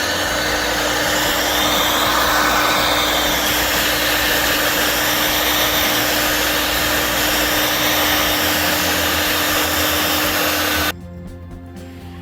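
Electric heat gun blowing hot air to soften a sticker on a metal bike frame: a loud, steady rush with a constant hum. It switches off abruptly about eleven seconds in.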